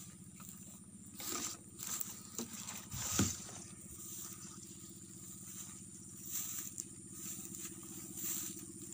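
A tractor engine running steadily while ploughing the rice paddy, with footsteps crunching and rustling through dry stubble and grass several times in the first few seconds, the loudest about three seconds in.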